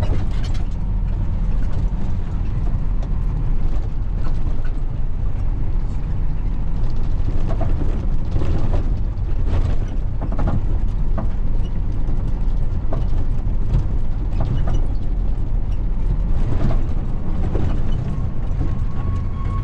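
Box truck driving, heard from inside the cab: a steady low engine and road rumble, with scattered clicks and rattles.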